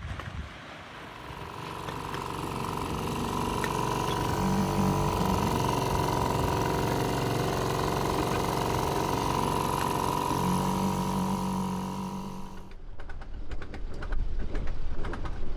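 Small outboard motor running steadily, swelling over the first couple of seconds and then holding one pitch. It cuts off abruptly about 13 seconds in, followed by a rapid run of clicks.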